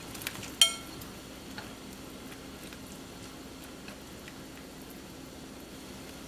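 Water at a rolling boil in a pan, bubbling steadily, with one sharp ringing clink about half a second in as a ceramic bowl knocks against the pan, and a few faint ticks after.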